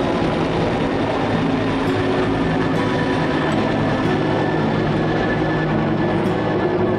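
Helicopter running: a loud, steady drone of engine and rotor, with several tones that drift slowly in pitch.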